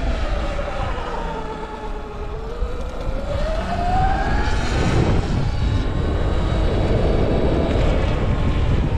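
Sur Ron electric dirt bike's motor whining, its pitch falling as the bike slows for about two seconds and then rising again as it speeds up, over a steady low rumble.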